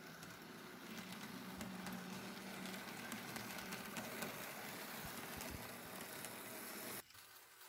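Model of an ETA 515 battery railcar running on the layout's track: a faint steady motor hum with light clicking of the wheels on the rails, growing a little louder about a second in as it comes close, then cutting off suddenly near the end.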